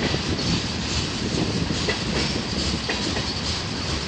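Freight train boxcars rolling past: steel wheels running on the rails with a steady noise and scattered sharp clicks and clanks.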